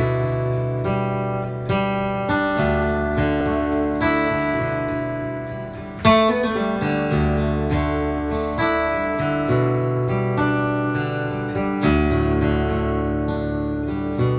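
Background music on acoustic guitar: plucked chords that ring out and fade, a new one about every second, with a sharper, louder one about six seconds in.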